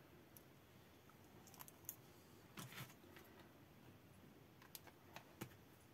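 Near silence, broken by a few faint, scattered clicks from handling paper and scissors while trimming a card.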